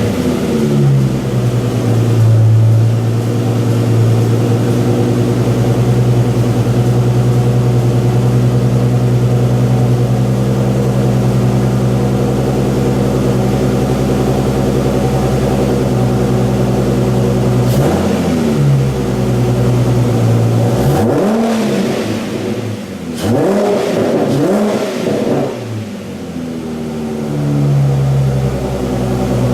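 Exhaust of a 2006 Ford Mustang with a Cervinis aftermarket exhaust, idling steadily just after start-up. About 18 seconds in the engine is blipped once, then revved several times in quick succession before settling back to idle.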